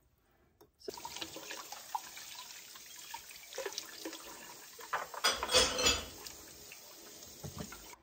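Kitchen faucet running in a steady stream over dishes being rinsed by hand, the water falling into a metal pot in the sink; it starts just under a second in. A louder clatter of dishes and splashing comes a little past the middle.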